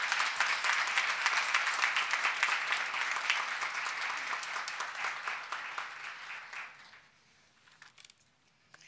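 Audience applauding, the clapping dying away about six or seven seconds in, with a few faint clicks near the end.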